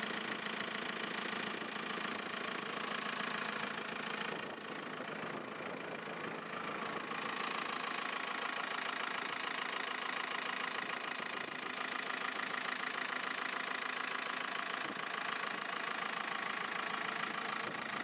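Diesel engine of a JCB 3CX backhoe loader idling steadily, heard close up at the open engine compartment.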